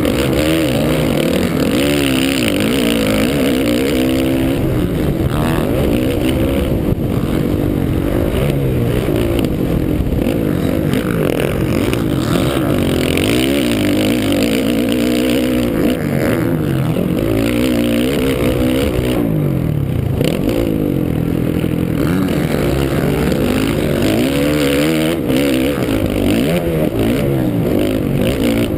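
Motocross dirt bike engine heard up close from the rider's own bike, revving hard, its pitch climbing and dropping again and again as the throttle is worked and gears change.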